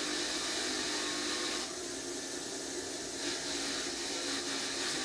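Electric fine wire wheel running steadily, its wires hissing against spark plugs held to it to scrub off carbon and rust; the hiss changes a couple of times as the plugs are moved on the wheel.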